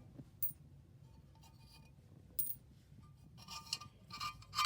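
Quarters clinking: two sharp single clicks, then a quick run of ringing metallic clinks near the end.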